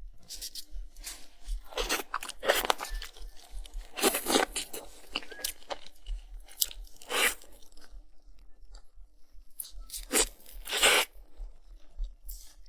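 Someone biting and chewing crunchy food: a handful of loud crunches at irregular intervals, with quieter chewing between them.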